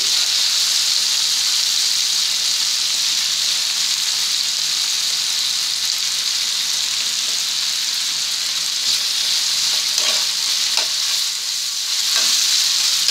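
Chopped carrots and cauliflower sizzling in oil in a frying pan with a steady hiss, stirred with a metal spatula that scrapes the pan a few times near the end.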